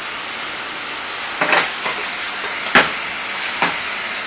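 Beef stir-fry with beans and sauce sizzling steadily in a nonstick frying pan over a gas flame, while a metal utensil stirs it and knocks against the pan about three times.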